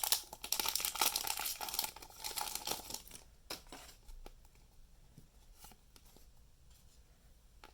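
Foil booster pack wrapper crinkling and tearing open for about three seconds, then much quieter with a few isolated faint ticks.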